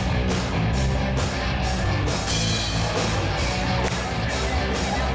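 Live rock band playing: electric guitar and a drum kit, with cymbal hits keeping a steady beat about twice a second.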